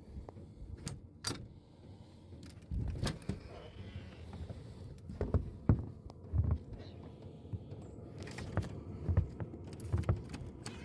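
Scattered knocks, clicks and low thumps at irregular intervals.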